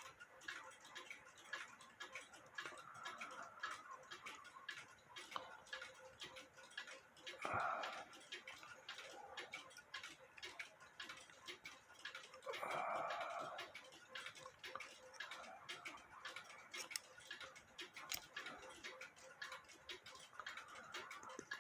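Faint, steady ticking of a mechanical clock, with two brief louder sounds about 7 and 13 seconds in.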